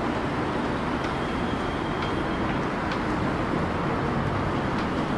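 Steady road traffic noise from the busy street below, a continuous rumble and hiss, with a few faint clicks.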